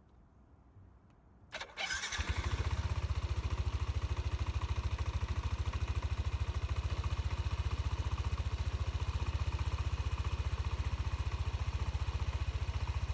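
Yamaha Tricity scooter's single-cylinder four-stroke engine started with the electric starter about a second and a half in, then idling steadily with an even pulse, run on fresh oil after an oil change before the level is checked.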